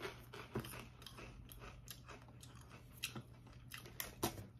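Faint, irregular crunches of a person chewing Lay's Classic potato chips.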